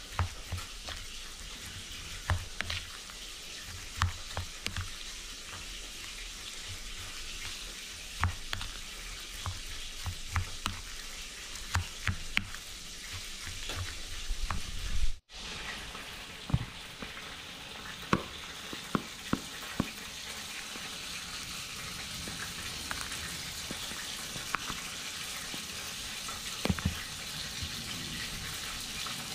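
Food frying in hot oil, a steady sizzle with scattered sharp clicks and knocks. The sound briefly cuts out about halfway through.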